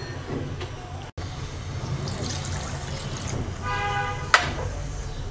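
Water poured from a measuring cup into a pot of cooking dal, with a brief ringing tone and a sharp knock about four seconds in.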